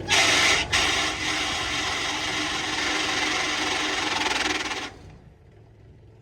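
WoodMaxx MX-8800 PTO wood chipper grinding and rasping harshly as it is started with leftover chips jammed against its flywheel, with a sharp click about a second in; the noise cuts off suddenly about five seconds in.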